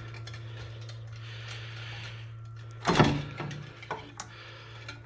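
Intercooler pipe being worked loose by hand in a Honda K24 engine bay: light rustling, then a sharp clunk and clatter about three seconds in, followed by a couple of light clicks.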